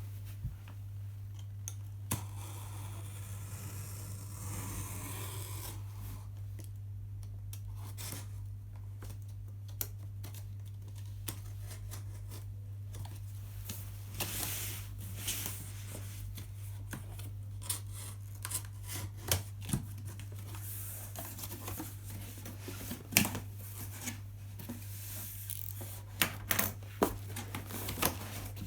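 Scattered clicks, scrapes and rustling of things being handled by hand, more frequent in the second half, over a steady low hum.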